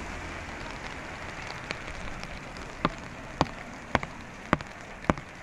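Heavy rain falling steadily on a wet, puddled street. From about three seconds in, sharp taps come at an even pace, about two a second, louder than the rain.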